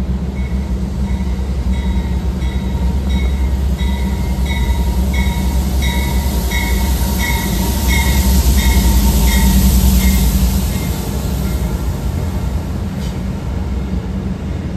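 Amtrak passenger train hauled by an electric locomotive rolling past on the adjacent track: a steady rumble of wheels on rail, loudest as the middle of the train goes by. A regular high-pitched ticking, nearly two a second, runs through the first part of the pass.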